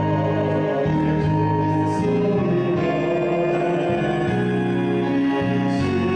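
Slow hymn music: held accompaniment chords over a bass line that changes note about once a second, with singing.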